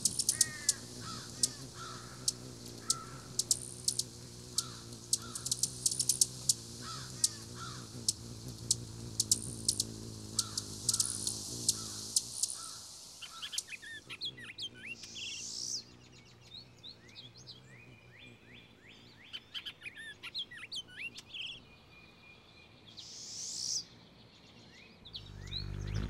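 Hummingbirds at a feeder chipping and twittering: a dense run of sharp, high chip notes over a low steady hum for about the first half, then a burst of quicker twittering, then sparser chirps with a rising sweep near the end.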